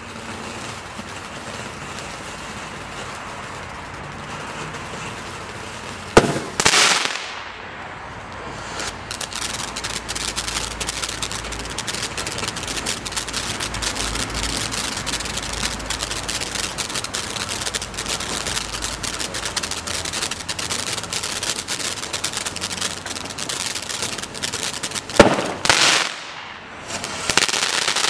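Dominator Air Aid firework spraying sparks from the ground with a steady hiss, then a sharp bang about six seconds in followed by a second burst. From about nine seconds on it crackles densely and rapidly, with another loud bang and burst near the end.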